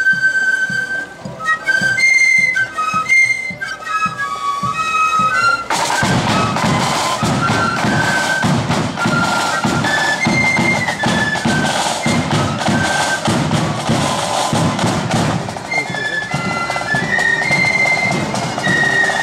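Blood-and-thunder flute band on the march: a section of flutes playing a melody over side drums and a bass drum beating time. The sound becomes fuller and louder about six seconds in.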